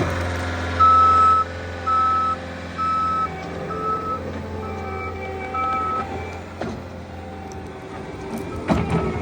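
Bobcat skid steer's reversing alarm beeping six times, about once a second, over the steady running of its engine as the machine backs up. The beeps stop a few seconds before a short burst of clatter near the end.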